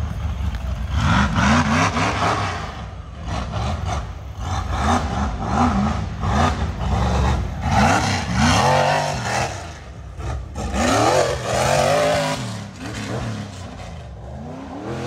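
Off-road rock racing buggy's engine revving hard in repeated bursts, its pitch rising and falling about once a second as the driver works the throttle.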